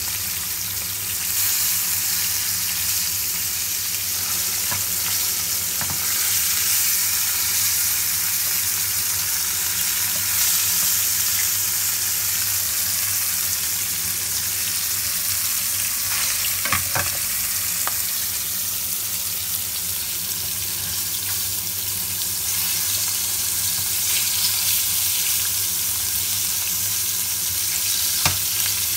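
Fish pieces sizzling steadily in hot oil in a frying pan, with a few short knocks of a spatula against the pan as the fish is turned, two close together about two-thirds of the way through and one near the end.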